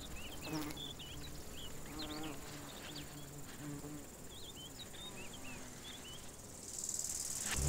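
Faint, intermittent buzzing of a poppy mason bee's wings, mostly in the first half, over constant high twittering chirps of small birds. A hiss swells near the end.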